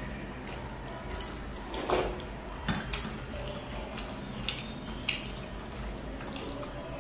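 Wet squishing and sticky clicks of fingers mixing rice and curry on a steel plate, with a few sharp clicks, the loudest about two seconds in.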